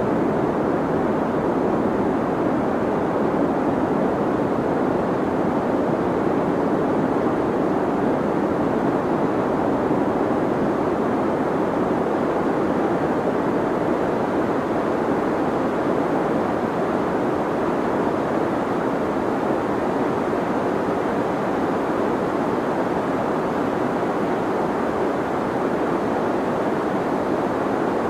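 Deep white noise for sleep: a steady, unchanging hiss weighted toward the low and middle range, with little in the highs.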